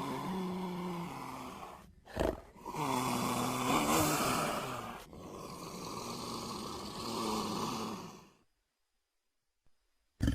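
Designed Troodon dinosaur vocalizations: raspy, pitched growling calls with a hissing edge and bending pitch. One call fades about two seconds in, a short sharp cry follows, then two long calls run until a little past eight seconds, with near silence after them until a new loud call begins at the very end.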